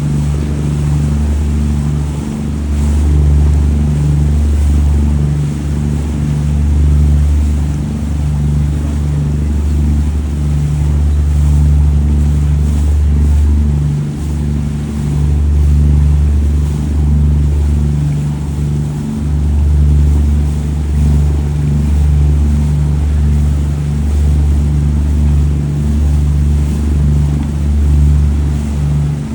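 Boat engine running steadily under way, a loud low drone that swells and eases a little every few seconds.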